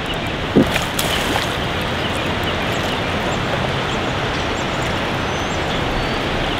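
Steady rush of flowing creek water around a wading angler, with a couple of brief knocks about a second in.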